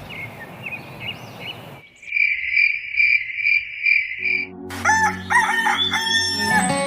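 A high, steady, pulsing insect trill, like a cricket, then a rooster crowing for about two seconds, starting a little past halfway.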